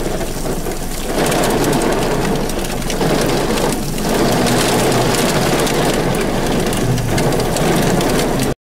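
Heavy rain hitting a vehicle's roof and windshield in a dense, steady patter.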